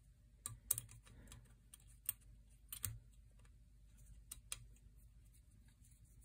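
Faint, scattered clicks and light taps of small metal parts and screws being handled and fitted onto a rifle's action by hand, irregular, with a few sharper clicks in the first half.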